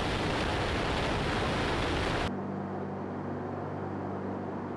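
Loud rushing roar of airflow and engines picked up by a camera mounted on a Tu-95 bomber in flight. It cuts abruptly about halfway through to a quieter, steady low aircraft engine drone with a fixed pitch.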